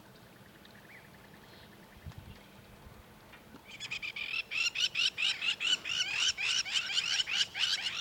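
A rapid series of high, rising chirping calls, about six or seven a second, starting suddenly a little over three and a half seconds in, after near-quiet.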